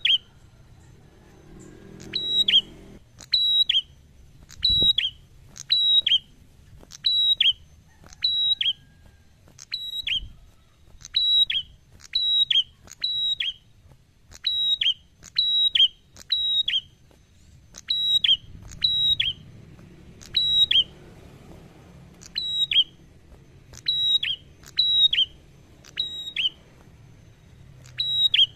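Caged tailorbird (Indonesian 'prenjak') calling loudly: sharp, high double notes, each pair stepping down in pitch, repeated about once a second.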